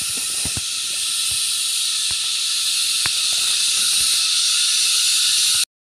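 Steady high-pitched chorus of forest insects, a continuous hiss with a few faint ticks, cutting off suddenly near the end.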